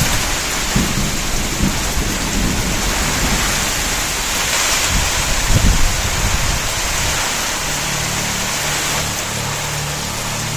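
Heavy rain falling steadily, with a few brief low rumbles. From about two-thirds of the way in, a steady low hum joins it.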